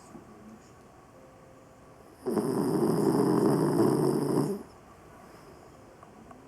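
Sleeping dog snoring: one loud snore about two seconds in, lasting a little over two seconds.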